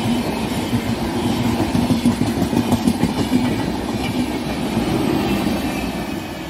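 LHB passenger coaches of an express train passing close by at speed, their wheels rumbling and clattering over the rails. The sound eases off near the end as the last coach goes by.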